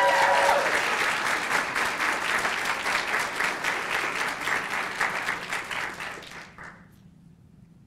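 Audience applauding, with a brief held cheer at the start; the clapping thins and fades out about six to seven seconds in.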